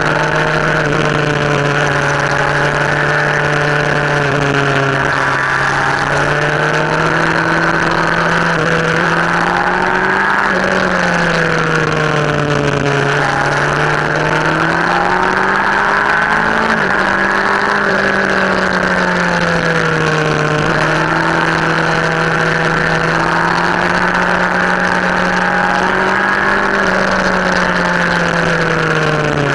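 A vehicle's engine running at a steady cruise, heard from onboard over wind and road noise. Its pitch sags and climbs again a few times, around ten, sixteen, twenty and twenty-seven seconds in, as the throttle eases and opens through the bends.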